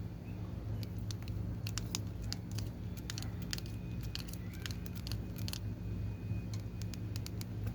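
Short clicks and scrapes of a blade cutting and peeling plastic insulation off an extension cord's copper wire, in a burst of about five seconds, over a steady low hum.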